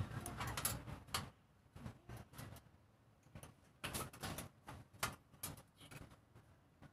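Scattered light clicks and taps from handling a soldering iron and jumper wires on an LED backlight strip against the TV's metal back panel, with a low rumble fading out in the first second.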